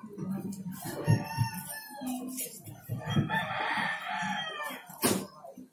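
A rooster crowing once, about three seconds in, the call lasting roughly a second and a half, with a few scattered knocks around it.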